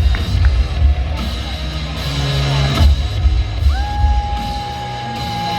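Wrestling entrance music with a heavy, pulsing bass beat, and one long held note from just under four seconds in.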